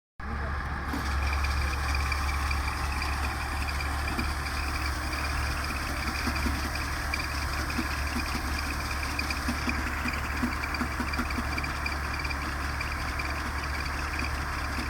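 Engine of farm harvesting machinery running steadily, a constant low hum under a dense, rattling mechanical noise.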